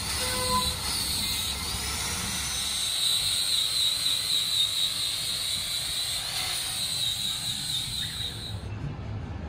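Angle grinder with an abrasive buffing disc running against the rubber of a giant mining-truck tyre, a steady high whine over a grinding hiss, buffing the damaged area for repair. The whine cuts off near the end.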